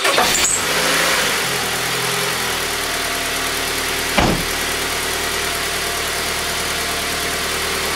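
Car engine just after catching, running a little faster for its first couple of seconds and then settling into a steady idle, with a single thump about four seconds in. It is pulling about 20 inches of mercury of manifold vacuum, a reading taken for a healthy motor.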